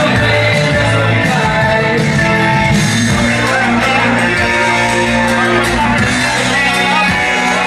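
Loud, steady music with a singer's voice over instruments and a bass line.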